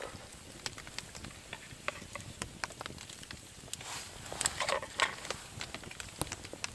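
Wood campfire crackling, with sharp irregular pops and snaps throughout. A brief burst of handling noise comes about four seconds in.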